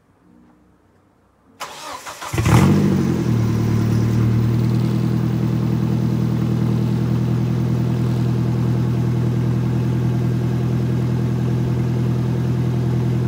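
Nissan Xterra's engine cranked by the starter about a second and a half in, catching with a brief rev flare, then settling into a steady idle, heard from behind at the tailpipe.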